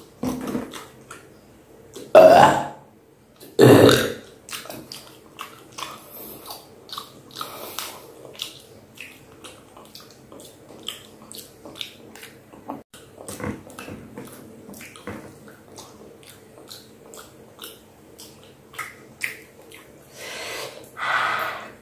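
A person burps loudly twice, about two and four seconds in, with wet mouth clicks and smacks from chewing between and after them.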